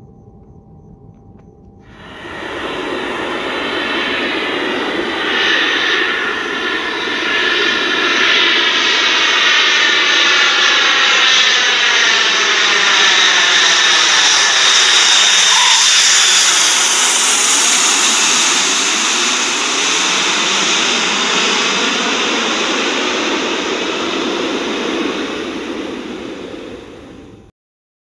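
Jet aircraft passing overhead: a rushing engine noise that comes in suddenly about two seconds in, swells to its loudest a little past the middle, and cuts off abruptly near the end.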